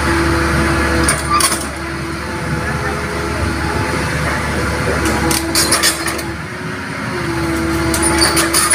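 Hitachi hydraulic excavator's diesel engine running, with a hydraulic whine that comes and goes as the boom moves. Several sharp knocks come about a second in, around five to six seconds in, and near the end.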